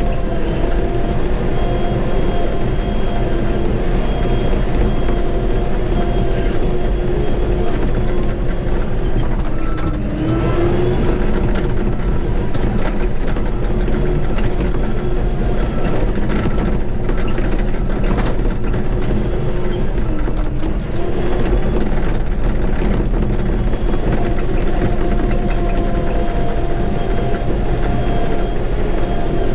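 Shantui bulldozer's diesel engine running steadily while pushing dirt, its pitch sagging briefly twice as it takes load, with scattered clanks from the machine.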